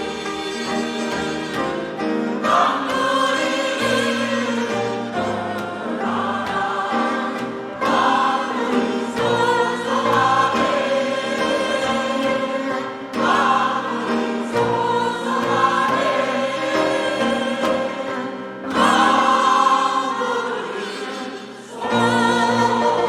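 Church choir singing a hymn in Korean gugak (traditional Korean music) style. The sung phrases run with short breaks between them.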